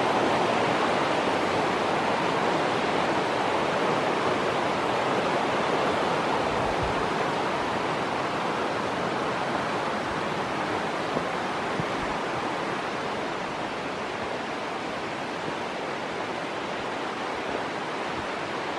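Steady rush of river water, slowly fading over the stretch.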